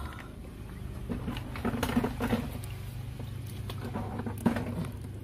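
Shallow muddy water sloshing and splashing as hands stir and grope in a puddle, with scattered sharp clicks and knocks; the loudest knock comes about four and a half seconds in.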